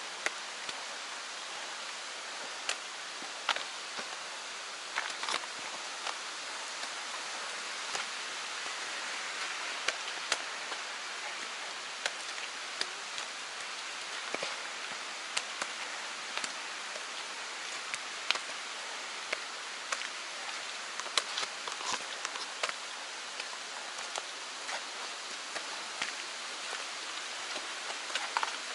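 Steady rush of a mountain stream after rain, with scattered, irregular sharp clicks and taps over it.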